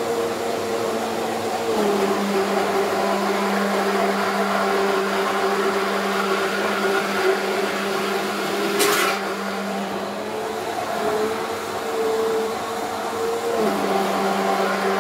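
Hand-held immersion blender running in a jar, whipping egg yolks and oil into mayonnaise. The motor's pitch drops and rises again a couple of times as the blender is slowly raised through the mix, with a brief knock about nine seconds in.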